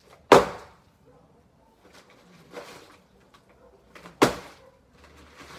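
Two sharp, loud bangs about four seconds apart, each dying away quickly, with faint scattered knocks between them.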